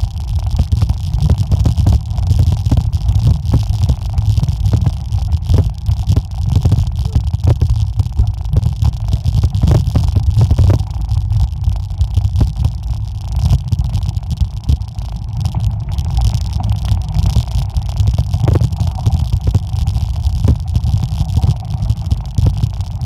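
Mountain bike rolling fast downhill over a rough gravel trail: a steady heavy low rumble with frequent clicks and knocks from the bike jolting over stones.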